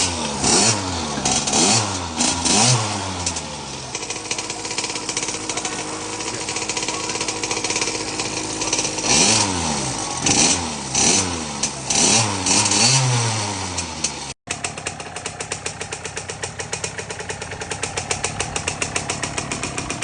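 KTM 50's small two-stroke single-cylinder engine running after a tune-up, blipped through a series of quick revs, settling to steady running, then revved in another quick series. After a brief dropout about two-thirds of the way through, it settles into a steady, rapidly pulsing idle.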